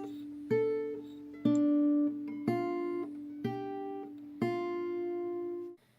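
Background music: acoustic guitar picking notes about once a second over a sustained low tone.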